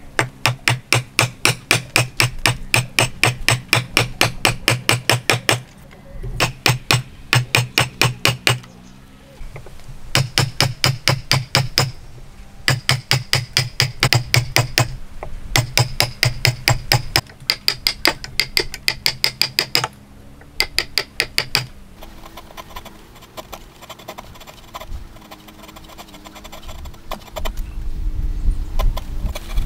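Wood chisel being driven into a hardwood block by repeated hammer blows, chopping out a mortise. The strikes come about four a second in runs of a few seconds with short breaks, then turn to quieter, lighter taps for the last several seconds.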